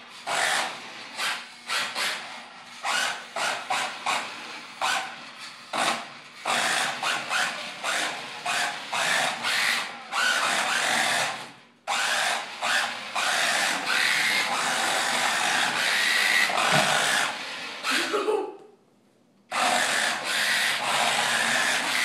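Toy remote-control car's small electric motor and gears whirring in short bursts as it is driven, then in longer runs. The whirring stops for about a second near the end.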